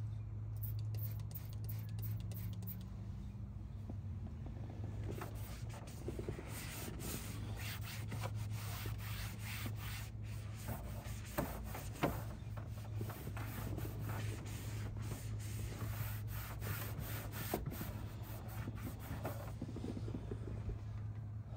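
Cloth rag rubbing and wiping over a truck's dashboard in many short, quick strokes that grow busier about five seconds in, over a steady low hum.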